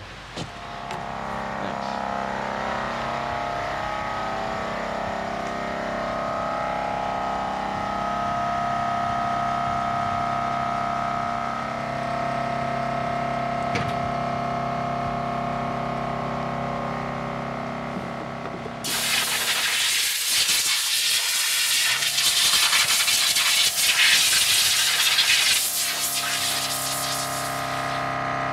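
Can of expanding spray-foam insulation hissing steadily for about eight seconds as foam is sprayed into a channel in a wooden beam, starting about two-thirds of the way in. Before and after it, background music of long held chords.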